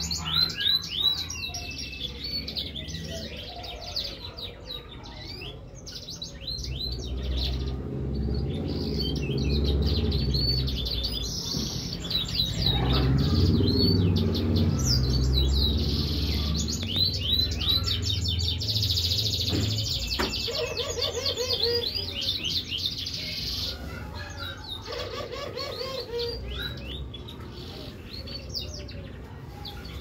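Siskin-hybrid mule finch singing a fast, continuous twittering song of rapid chirps and trills. A low rumble swells up in the middle and fades again.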